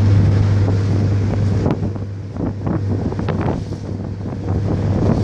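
Wind buffeting the microphone on a moving motorboat, over a steady low engine drone and the rush of the wake water.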